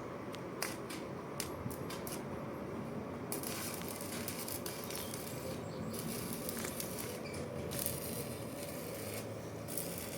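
Scattered clicks and taps, then about three seconds in an electric welding arc strikes and crackles with a steady sizzling hiss, breaking off briefly twice as the arc is stopped and restruck.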